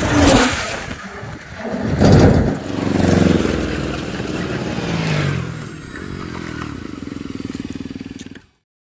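A vehicle engine revving up and down, then settling into a steady, rapid pulsing run before the sound cuts off abruptly.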